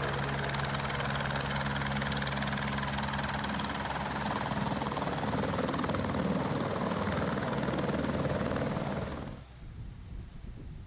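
A motor running steadily, a constant hum over a rushing noise, cut off abruptly about nine seconds in. After the cut there is only faint wind noise on the microphone.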